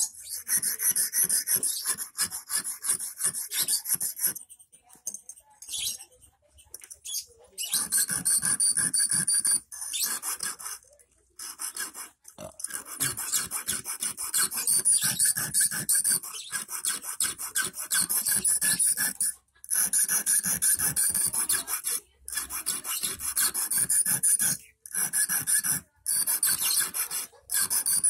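Small hand file rasping in fast back-and-forth strokes across the tip of a 2.5 mm rust-proof steel wire, shaping the point of an eel hook. The scraping stops for a few seconds about five seconds in, and for short breaks several times later.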